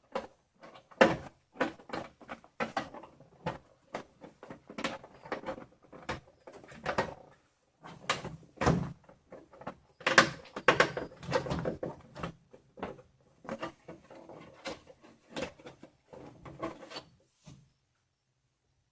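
Irregular clicks and knocks of hands working a Teflon (PTFE) filament guide tube into its fitting through a 3D printer's top panel, stopping shortly before the end.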